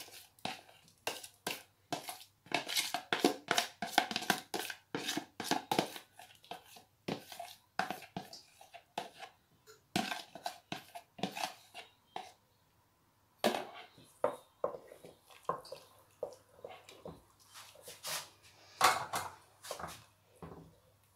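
Spoon scraping and tapping against a plastic container and an aluminium pot as besan batter is scraped out into hot water: a busy run of quick clicks and scrapes with a short lull about twelve seconds in, over a faint low hum.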